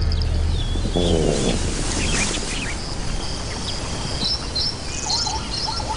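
Savanna ambience of many small birds chirping and warbling, with a short lower animal call about a second in. Background music fades out at the start.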